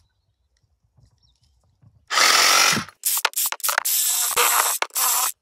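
DeWalt cordless reciprocating saw cutting through a branch. One long burst about two seconds in ends with the motor winding down, and several shorter bursts follow with brief stops between them.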